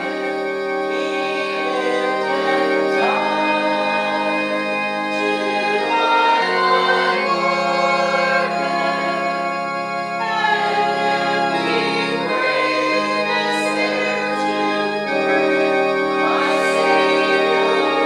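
A hymn played on organ with voices singing along: long held organ chords that change every few seconds under the sung melody.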